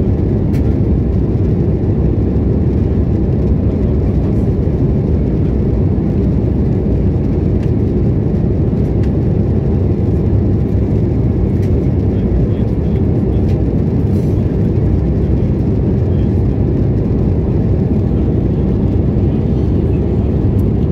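Aircraft cabin noise after take-off: the engines and rushing air make a steady, low, even noise that does not change.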